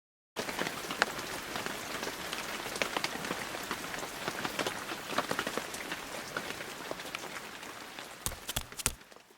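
Rain falling on a hard surface: a dense, even patter with many sharp drop clicks. It starts abruptly just after the beginning and thins out near the end, where three or four short dull thuds follow.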